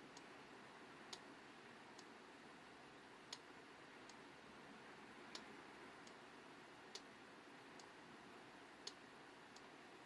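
Near silence with a faint steady hiss, broken by sharp faint clicks about once a second at uneven spacing.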